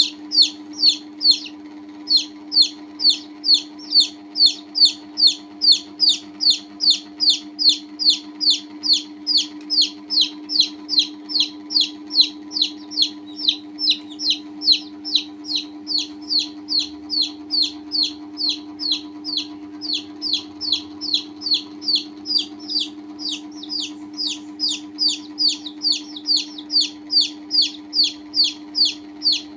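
Baby chick peeping over and over, about two to three short falling peeps a second, with a brief pause about a second and a half in. A steady low hum runs underneath.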